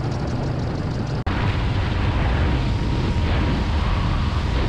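Light aircraft in flight, engine running under a heavy rush of wind on the microphone. The sound cuts out abruptly about a second in and comes back slightly louder.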